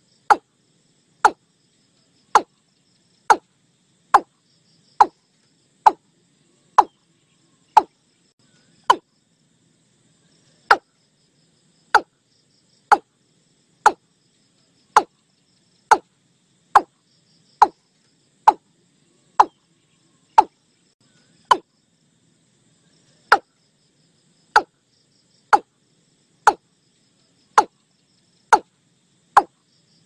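Watercock calls: short, sharp single notes repeated about once a second, with a couple of brief pauses. Faint insect chirring runs underneath.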